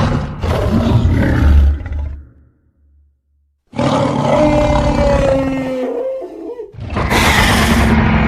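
Giant-monster roar sound effects: a short roar, a silent gap of about a second and a half, then a longer roar with a held, slightly falling tone, and another loud roar starting near the end.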